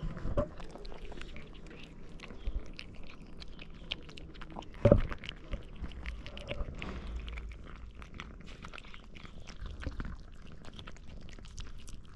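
Three tabby cats chewing and lip-smacking wet cat food chunks close up, a quick run of small wet clicks and smacks. A sharp thump about five seconds in is the loudest sound, with a smaller one just after the start.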